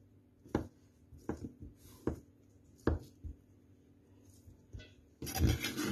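Kitchen knife dicing boiled sweet potato on a plastic cutting board: about six sharp knocks of the blade striking the board, unevenly spaced, then a brief denser noise near the end.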